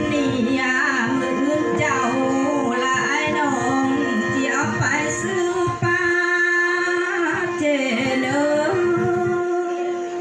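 Khặp Thái (Thái ethnic folk song) singing: a voice in long, sliding, ornamented phrases over a steady held drone note and instrumental accompaniment.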